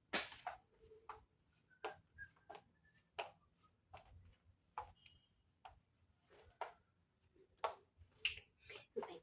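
Footsteps of shoes on a hard floor: a string of sharp, uneven taps about one to two a second.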